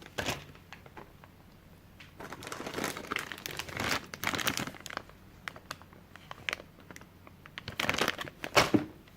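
Small plastic bags holding plastic miniatures being handled, crinkling in irregular bursts: a short bit near the start, a longer stretch from about two seconds in, and more near the end.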